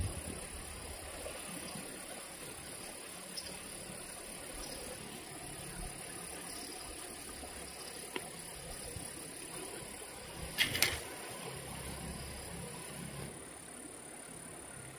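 Steady high-pitched drone of insects with a low rumble underneath, broken by a few light clicks and two sharp clacks in quick succession just under eleven seconds in, the loudest sounds.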